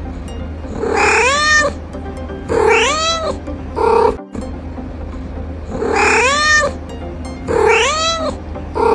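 Domestic cat meowing repeatedly: about five long, drawn-out meows, each rising and then falling in pitch, with one short meow among them.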